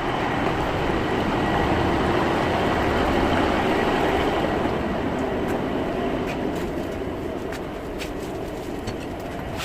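Train running on the rails at a station: a steady rumbling rush that slowly fades, with a few light clicks in the second half.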